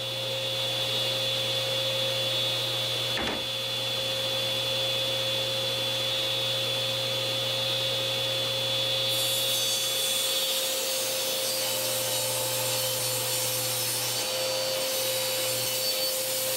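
Table saw running steadily while 3/4-inch plywood is fed through the blade: a constant motor hum and blade whine with the noise of the cut.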